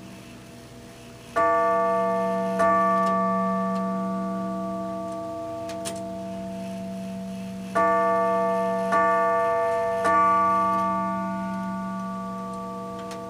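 Howard Miller Concerto grandfather clock movement striking its one long chime rod twice, the half-hour signal, then three times, the three-quarter-hour signal. Each strike rings with a bright metallic tone that slowly dies away, overlapping the next, with a faint click or two from the movement in between.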